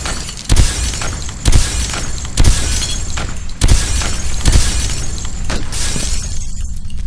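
Sound-effect gunshots, each followed by shattering glass, about once a second, over a steady low rumble. The crashing stops near the end, leaving only the rumble.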